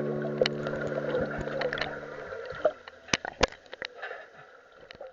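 Closing background music: held notes that cut off about two seconds in, leaving a scatter of sharp clicks over a faint hiss that thins out toward the end.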